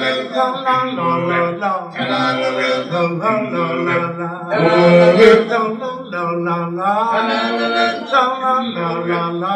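Background music with a voice singing in short phrases, loudest about five seconds in.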